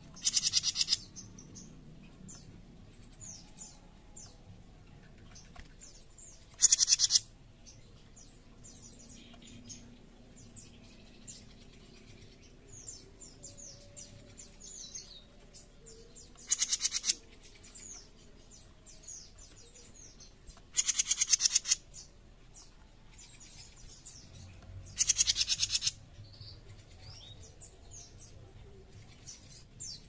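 Jenggot mini songbird giving harsh, rasping rattle calls, the 'besetan' kept as a master voice for training other songbirds: five loud bursts of about a second each, spaced several seconds apart. Faint chirps and twitters fill the gaps between them.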